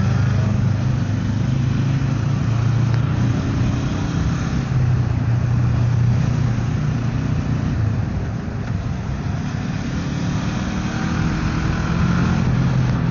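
Motorcycle engine running at a steady cruise with wind rushing over the microphone. It eases off for a few seconds past the middle, then picks up again with a slight rise in pitch.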